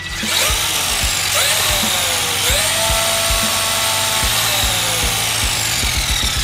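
Traxxas X-Maxx's brushless electric motor and drivetrain whining as the truck is run up with its wheels off the ground. The pitch rises over the first two seconds or so, holds, then falls away near the end. Background music with a steady beat plays underneath.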